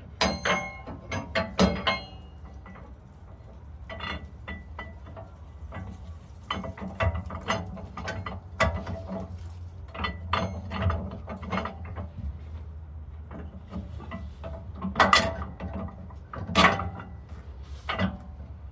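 Irregular metallic clanks and clicks from steel suspension hardware being handled and fitted under a rear leaf spring. The loudest three knocks come near the end, about a second and a half apart, over a low steady hum.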